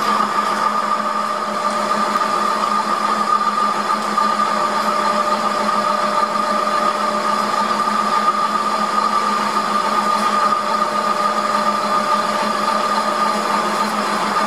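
Metal lathe taking a boring cut, the boring bar cutting the bore of a spinning metal plate: a steady machine hum with a higher whine over it.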